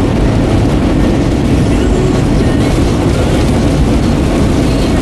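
Steady rumble of a car driving on a highway, heard from inside the cabin: tyre, road and engine noise, heaviest in the low range.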